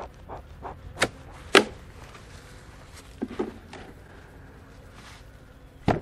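Sharp cracks and lighter knocks of wooden beehive parts as a honey super is worked loose from the hive with a hive tool: two loud cracks about a second in, a pair of lighter knocks a little after halfway, another near the end, and a faint puff of the bee smoker in between.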